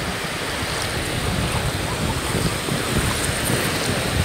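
Sea surf washing onto a sandy beach as a steady wash of noise, with wind rumbling on the microphone.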